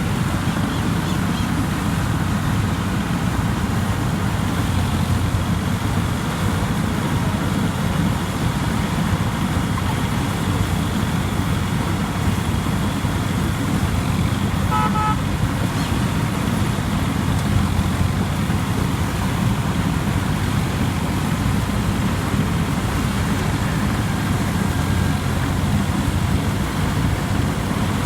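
Rice combine harvester's diesel engine running steadily under load. A short high beep sounds about halfway through.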